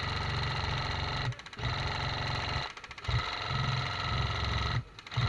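Airsoft electric gun (AEG) firing long full-auto bursts, a fast, even buzzing rattle of the gearbox cycling, stopping and starting again three times.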